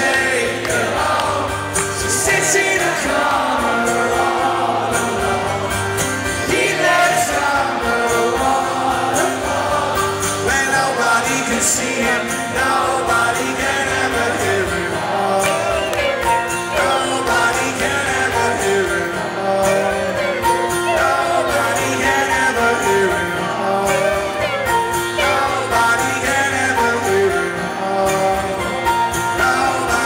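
Live rock music: a male singer sings over a strummed acoustic guitar through the concert sound system, recorded from the audience.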